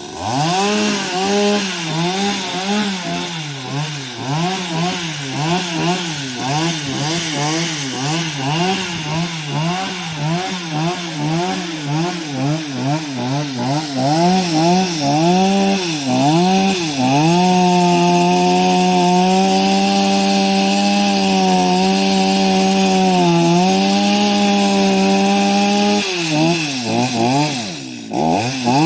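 Chainsaw engine revving up and down in quick repeated swells, then held at a steady high pitch under full throttle while cutting wood. Near the end the revs drop briefly before climbing again.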